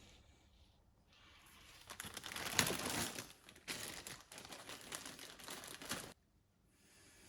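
Turbocharger VNT vane parts being cleaned with brake cleaner: a crackling hiss that builds over about a second, runs for about four seconds and cuts off suddenly.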